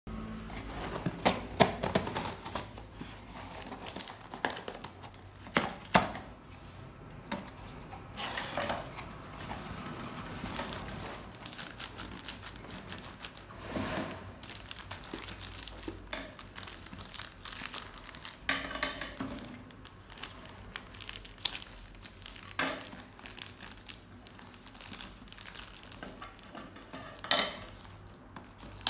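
Packaging being opened by hand: kitchen scissors cutting the tape on a cardboard box, then a plastic-wrapped parcel crinkling as it is handled and cut open near the end. Irregular rustling with sharp snips and clicks.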